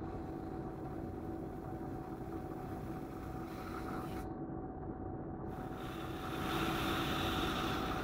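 Airbrush hissing as it sprays paint, over a steady machine hum. The hiss stops briefly around the middle and is louder near the end.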